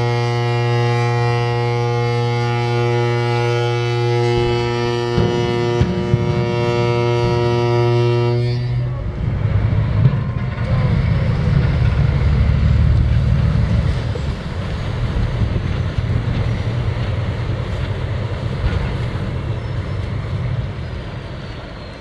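A ship's horn sounds one long steady blast lasting about nine seconds. As it stops, the hull of a river cruise ship is side-launched off the slipway into the water, and a loud low rushing and splashing of water follows, fading slowly as the waves settle.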